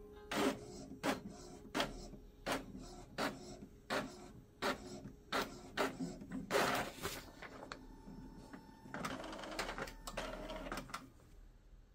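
Epson M2120 inkjet printer mechanism running, with a regular clicking roughly every 0.7 seconds. About six and a half seconds in there is a louder whirring movement, and near the end a longer run of mechanical noise.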